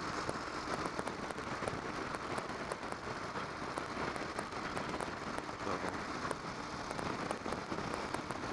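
Steady wind rush and road noise of a motorcycle at speed, heard through a microphone inside the rider's helmet: an even, unbroken hiss.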